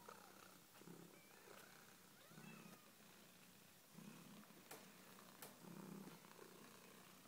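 Siberian cat purring faintly, swelling and fading in a slow breathing rhythm about once every second and a half. Two light clicks come near the middle, with faint thin high squeaks here and there.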